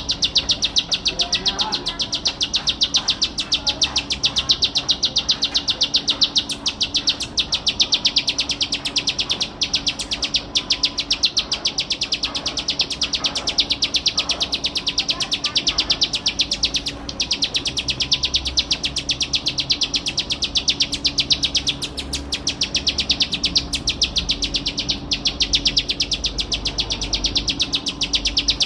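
Ciblek sawah (a prinia) singing without pause: a fast, even, dry ticking trill of about ten high notes a second, broken only a few times for an instant.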